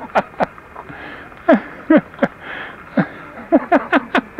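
A person laughing in quick breathy bursts, each 'ha' falling in pitch, three or four at a time: one run about a second and a half in and another near the end.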